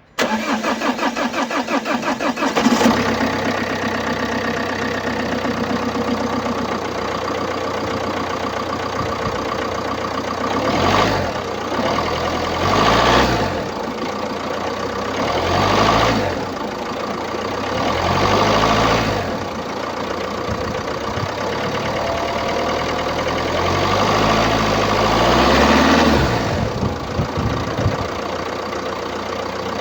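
Opel Combo's 1.6-litre diesel engine (A16FDH) cranked by the starter for about two and a half seconds, catching and settling to idle, then revved briefly five times, the last rev held longest. The uploader puts its unusual engine noise down to a clogged diesel particulate filter.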